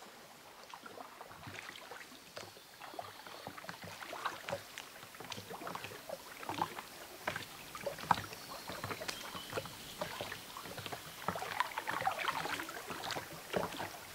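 Wooden canoe being paddled with a single-bladed paddle: the blade dipping, splashing and dripping in the water in irregular strokes, a little louder in the second half.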